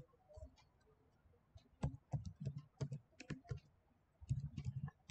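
Typing on a computer keyboard: a few scattered keystrokes, then a quick run of typing from about two seconds in and another flurry near the end.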